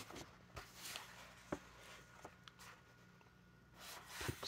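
Faint rustling and a few soft ticks of paper as pages of a large book are turned by hand, with a faint steady hum underneath.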